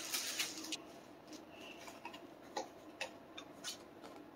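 Greeting-card stock rustling and creasing as it is folded by hand, loudest in the first second, followed by a few faint, scattered ticks as the card is handled.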